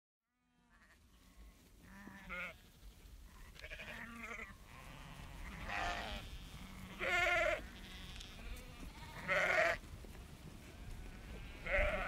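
Sheep bleating: a series of separate wavering calls, about one every one to two seconds, fading in from silence and growing louder.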